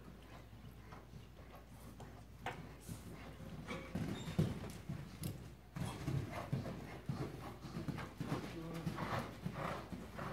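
Horse's hoofbeats cantering on soft arena footing, a rhythmic run of dull thumps that grows louder from about four seconds in.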